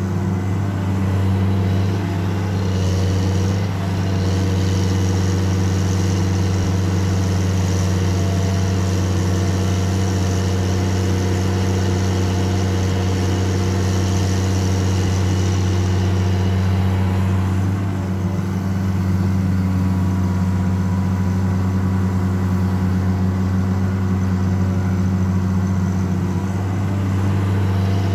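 Caterpillar 336D L ME hydraulic excavator's six-cylinder C9 diesel engine running steadily under working load as the machine digs, lifts and swings its bucket, a constant deep drone with only a brief dip about two-thirds of the way through.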